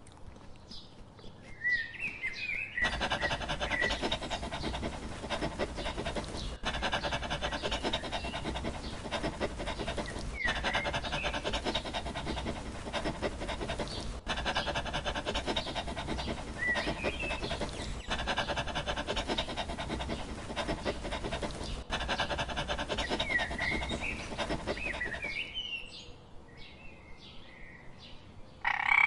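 A dog panting, starting about three seconds in and stopping shortly before the end, in stretches of about four seconds with brief breaks between them. Birds chirp at the start and near the end.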